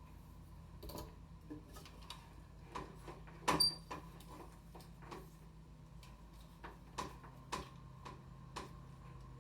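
Scattered light clicks and taps from handling small objects during hairstyling. The loudest, about three and a half seconds in, has a brief high metallic ring. A steady low hum runs underneath.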